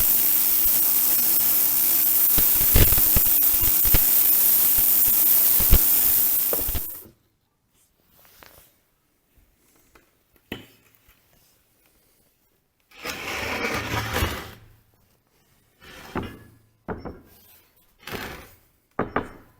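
Electric arc welding on steel, the arc crackling steadily for about seven seconds and then stopping. A few scattered knocks and a short scraping follow.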